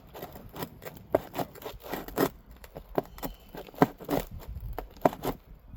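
A roofing tool scraping and prying under old asphalt shingles to pull roofing nails: a run of short, irregular scrapes and clicks.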